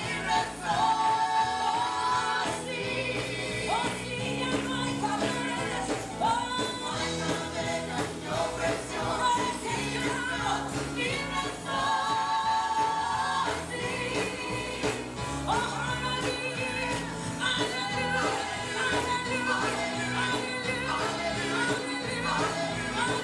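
Live gospel worship song: a woman leads the singing through a microphone and PA, with a small group of backing singers and instrumental accompaniment under a steady bass line.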